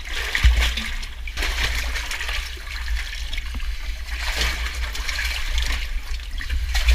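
Water trickling and splashing in a muddy cave passage, with a steady low rumble underneath and a single knock about half a second in.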